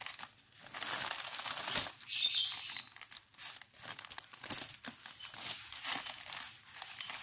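Clear plastic zip bags of round diamond-painting drills crinkling as a long strip of them is handled and unrolled, with irregular rustling and many small sharp clicks.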